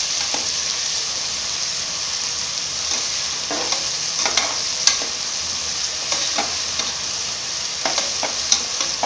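Onions and ground spice paste sizzling in hot oil in an aluminium pressure cooker, stirred with a ladle that scrapes and clicks against the pot now and then. The masala is being fried until the oil separates.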